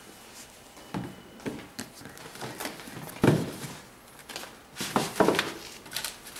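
A sneaker and its cardboard shoebox being handled: a series of knocks, scrapes and rustles. The loudest is a dull thump about three seconds in, and a cluster of handling noises follows about five seconds in.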